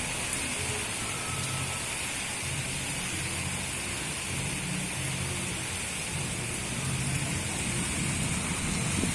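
Strong storm wind blowing steadily, with a low rumble of gusts buffeting the microphone over a steady hiss, getting a little stronger near the end.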